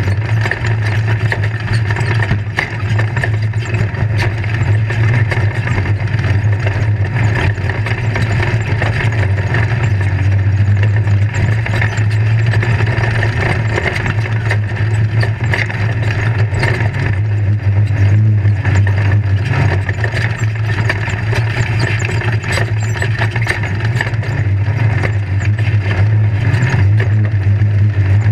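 Engine of a caged off-road race vehicle running steadily, heard from inside the cockpit as a constant low drone, with frequent rattles and knocks from the chassis over rough ground.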